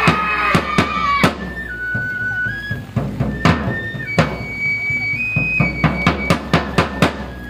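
Transverse flute playing held notes that step from pitch to pitch, over sharp wooden knocks from staffs striking together and a drum beaten with sticks. The knocks come faster in the last second and a half.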